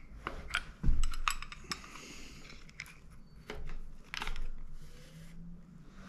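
Light metallic clicks and clinks as a greased bicycle quill stem is worked into the steerer tube with a hex key in hand, with a dull knock about a second in.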